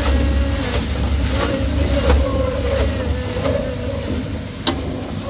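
A vehicle engine running with a steady low rumble that stops about three seconds in, followed by a single sharp click.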